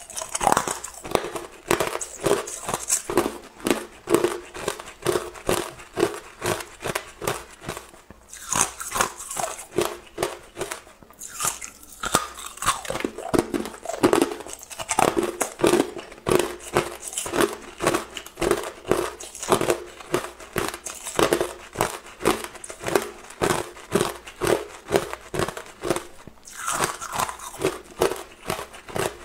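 A person chewing a mouthful of hard clear ice: close, repeated sharp crunches and cracks, a few a second, as the ice breaks between the teeth.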